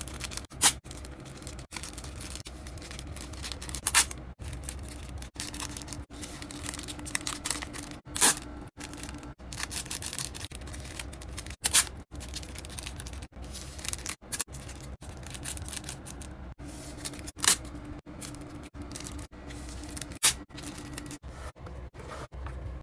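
Packaging being handled: rustling, scraping and tearing, with many sharp snaps and clicks. It stops and starts abruptly again and again.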